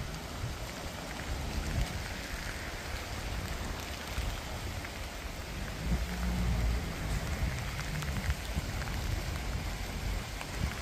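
Steady rush of the swollen Piława river running fast and brown in flood, at bank-full just before overflowing. An uneven low rumble swells about six seconds in.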